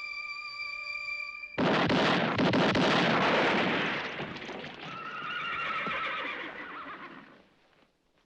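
A held film-score note is cut off about one and a half seconds in by a sudden, loud burst of rapid revolver gunfire that fades over a few seconds. A horse then gives one long, wavering whinny.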